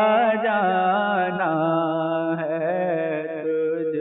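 Male naat reciter singing unaccompanied in Urdu, holding long wavering notes with melismatic turns over a steady low drone.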